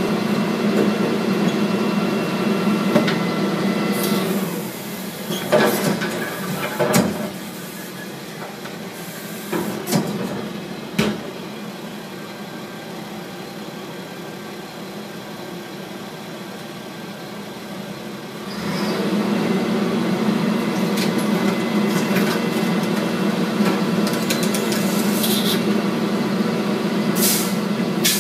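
Garbage truck's diesel engine running at raised speed, dropping to a lower idle about four seconds in while carts and bulky items go into the hopper with several knocks and bangs, then speeding up again about 18 seconds in as the packer cycles.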